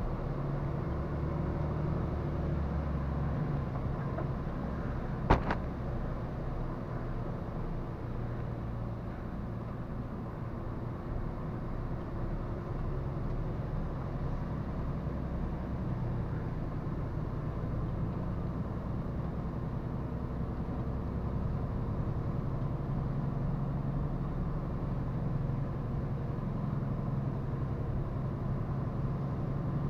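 Truck's diesel engine and road noise while driving, a steady low drone with the pitch shifting slightly as it goes. A single sharp click about five seconds in.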